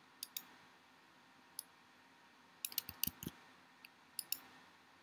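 Computer mouse and keyboard clicking: about a dozen sharp, irregularly spaced clicks, with a quick flurry and a few dull knocks about three seconds in.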